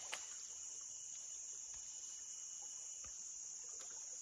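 Steady high-pitched drone of a jungle insect chorus, with one short click just after the start.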